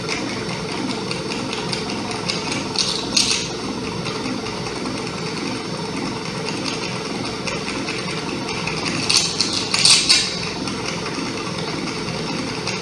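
Live experimental noise music: a dense, rattling, machine-like drone with a repeating pulse. Two louder bursts of hiss come about three seconds in and again around nine to ten seconds.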